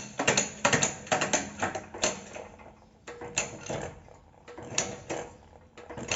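Metal tool parts clinking and clattering, a quick run of knocks at first and then scattered ones, as a socket and drift are set up on a shop press against a suspension-arm bushing. A faint steady hum comes in about three seconds in.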